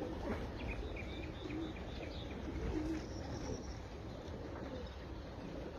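Domestic pigeons cooing in short, low, warbling phrases, with some higher bird chirps over a steady low rumble.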